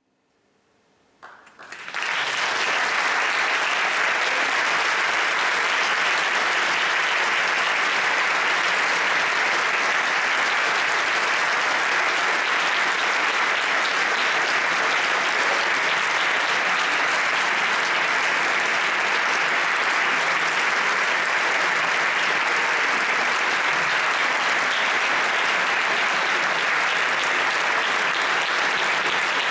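Audience applauding: a short hush, then the hall breaks into clapping about two seconds in, which keeps going steadily.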